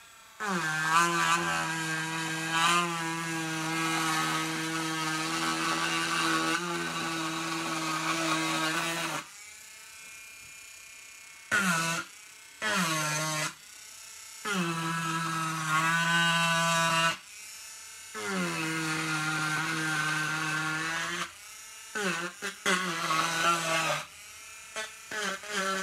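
A Dremel Stylo+ pen-style rotary tool running in several long stretches, rising in pitch as it spins up each time it starts. It hums with a wavering whine while the bit engraves the face of a wooden board.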